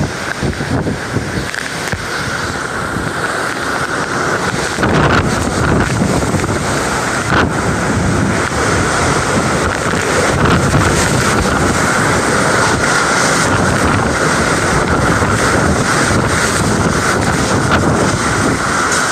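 Typhoon winds gusting hard, buffeting the microphone; the wind grows louder about five seconds in and stays strong.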